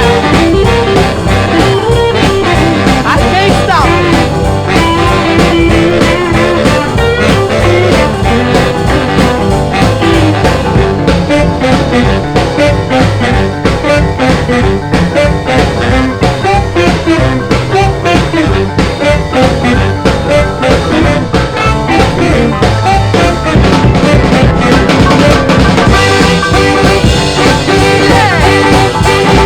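A rhythm and blues record playing from vinyl, with a steady beat.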